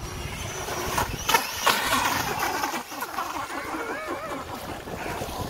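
Electric motor of a Traxxas RC monster truck whining as the truck ploughs through shallow surf, with loud splashing of spray about a second in. Voices join in the second half.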